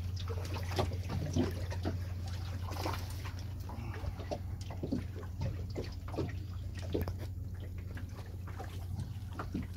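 Water lapping and trickling against a small boat's hull, with many small scattered splashes and knocks over a steady low rumble.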